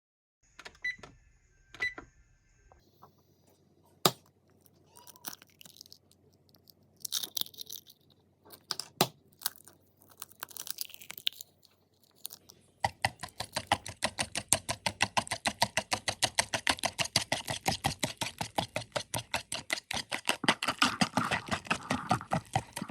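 Kitchen handling sounds: two short electronic beeps near the start, scattered clicks and rustling, then from about halfway a long run of rapid, even strokes, several a second.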